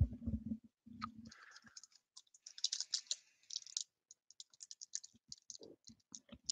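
Foil trading-card pack wrapper crinkling and crackling as fingers tear it open, with a few muffled handling knocks at the start.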